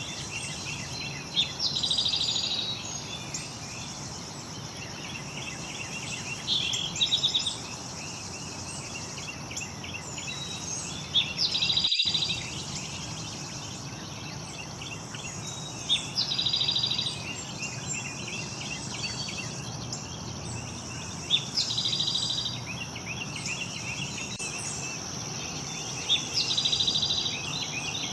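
A songbird repeating the same short song about every five seconds: a brief note, then a buzzy trill of about a second. A steady high insect drone runs underneath.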